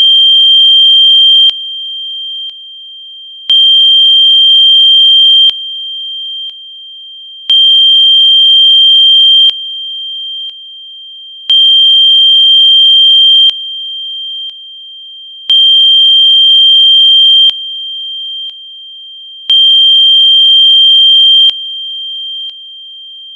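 Electronically generated pure sine tone, a Rife-frequency treatment tone: one high steady pitch that swells louder for about two seconds in every four, with fainter higher and lower tones joining it only in the loud parts. It cuts off suddenly at the very end.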